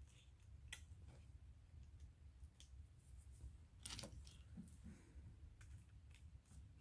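Near silence with faint scattered clicks and light taps of small craft decorations and a hot glue gun being handled, the loudest about four seconds in.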